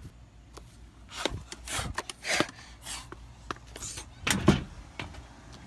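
Irregular rustles and a few soft knocks, the loudest about four and a half seconds in, from a handheld phone being moved about.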